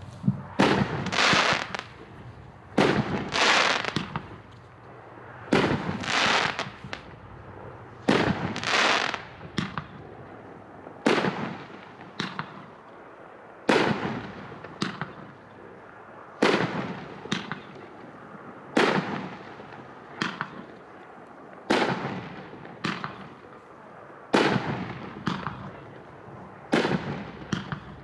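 Righteous, a 16-shot consumer fireworks cake, firing shot after shot, one about every two and a half seconds. Each shot is a thump as it lifts off, then the sharp bang of its burst about a second later.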